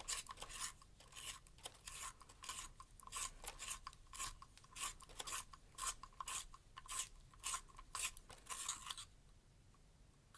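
Hand-held pencil sharpener shaving a colored pencil as it is twisted in the blade: a run of short rasping strokes, two or three a second, that stops about nine seconds in.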